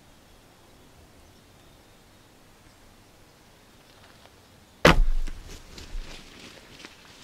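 Black Widow recurve bow shot released about five seconds in: one sharp, loud snap of the string with a brief low thump, followed by a second or two of rustling and small clicks.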